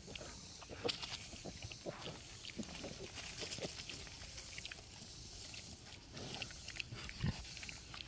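Piglets grunting in many short, soft grunts while rooting in the dirt and eating treats from a hand. The loudest grunts come about a second in and near the end.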